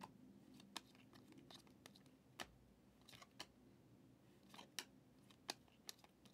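Glossy trading cards being flipped through by hand, each card slid off the front of the stack and tucked behind: a dozen or so faint, irregular clicks and snaps.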